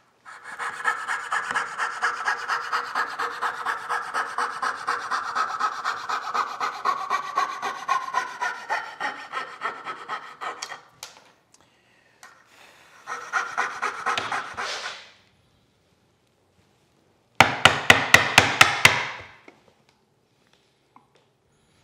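Coping saw cutting out the waste between dovetails in a board clamped in a vise, with quick, rapid strokes, the pitch of the cut slowly falling, and a second short burst of sawing a few seconds later. Near the end comes a quick run of about nine sharp blows of a wooden mallet on a chisel, chopping out dovetail waste.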